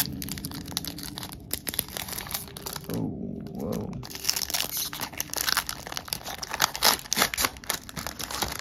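Foil wrapper of a Pokémon card booster pack crinkling and tearing as it is ripped open by hand, an irregular run of sharp crackles.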